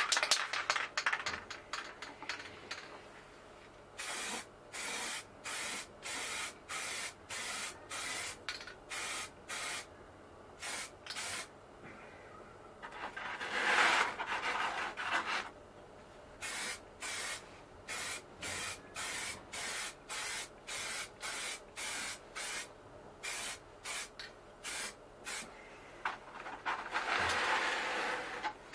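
Aerosol spray can sprayed in short, even bursts of hiss, about two a second, with pauses between runs. Twice there is a longer rubbing noise as the foam block holding the model truck cab is turned by hand in the cardboard spray booth.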